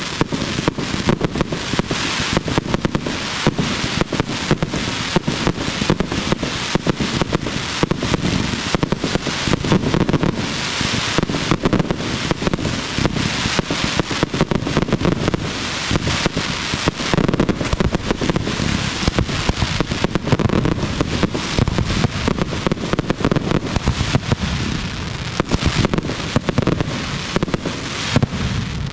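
Aerial fireworks firing in a dense, continuous barrage: launches and bursts overlapping at several bangs a second, with crackling.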